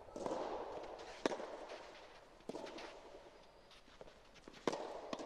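Soft tennis rally: rackets striking the soft rubber ball in a string of sharp hits about a second apart, the loudest about a second in.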